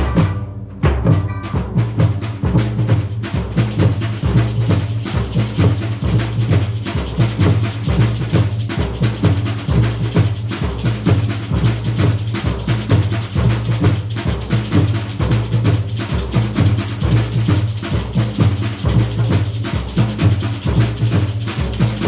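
Samba percussion playing a steady, driving beat: deep bass drums pulse about twice a second under dense, quicker higher drums and shakers. The higher percussion is sparse for the first couple of seconds, then fills back in.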